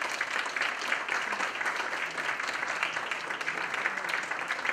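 Audience applause: a room of seated students clapping steadily, a dense patter of many hands.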